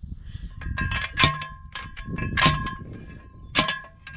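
A steel T-post being driven into the ground: three loud metal-on-metal clangs a little over a second apart, each ringing briefly. The post is going in slowly.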